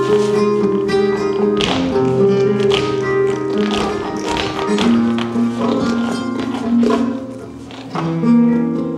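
Flamenco music for the silencio section of an alegrías: acoustic guitars with other sustained instrument notes, and many sharp taps of dancers' shoes striking the stage floor. The music softens briefly about two-thirds through, then picks up again.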